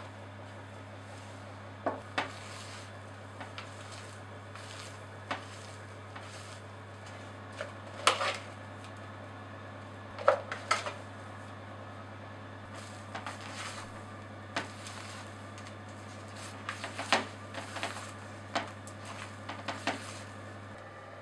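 Silicone spatula scraping and knocking against a plastic mixing bowl while folding meringue into an almond-flour dacquoise batter. The short knocks come at irregular moments over a steady low hum, and the loudest fall about 8 and 10 seconds in.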